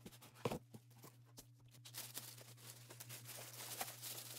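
A few light knocks as a cardboard box is lifted off, then a plastic packing bag crinkling as it is pulled off a new sewing machine, from about two seconds in.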